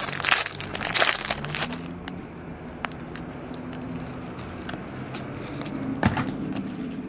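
Trading card pack wrapper crinkling and tearing open, loudest for the first second and a half or so, then quieter rustling and a few light clicks from handling, with another short rustle about six seconds in.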